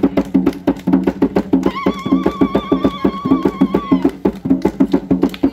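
Kavango traditional hand drums beating a fast, driving rhythm. From about two to four seconds in, a long high warbling call sounds over the drumming.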